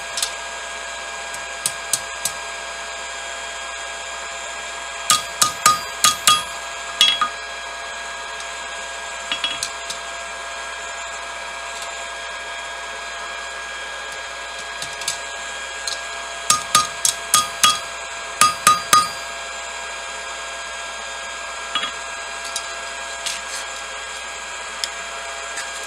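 Hammer blows on steel at an anvil, in quick groups of several ringing strikes, shaping hot quarter-inch round bar stock. A fan hums steadily underneath.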